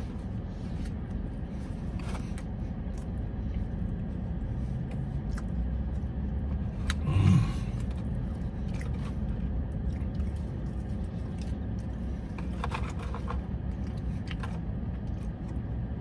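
Steady low rumble of a car interior, with scattered small clicks and scrapes. A brief louder sound comes about seven seconds in.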